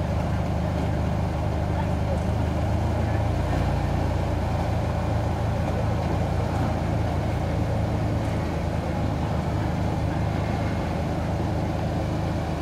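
Jeep Wrangler Rubicon's engine running low and steady as the Jeep crawls slowly over rocks.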